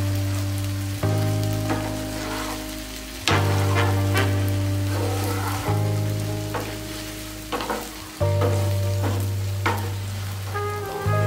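Wooden spatula stirring fried potatoes and okra in a non-stick pan, giving short scrapes and clicks over a sizzle. Background music of sustained chords runs throughout and is the loudest sound; the chords change about every two seconds.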